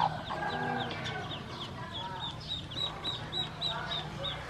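Ducklings peeping: a continuous run of short, high, down-slurred peeps, several a second, with lower calls mixed in.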